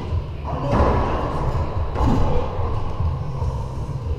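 Racquetball rally in an enclosed court: two sharp hits of racquet and ball, the first a little under a second in and the second about a second later, over a steady low rumble.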